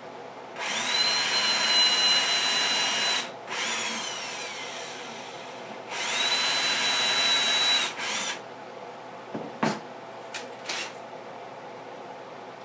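Electric drill running in two bursts of two to three seconds, each winding up to a steady high whine; after the first the motor winds down with a falling pitch, and a brief third burst follows. A few knocks and clicks near the end.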